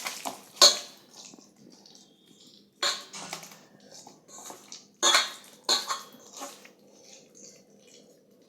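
Boiled Indian olives being mashed with mustard oil and spices in a bowl: wet squelching, with several short, sharp knocks and clinks against the bowl.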